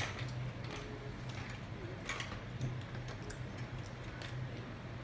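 Light, scattered clicks and taps of a small cardboard candy box of Choco Balls being handled at its flap, over a steady low hum.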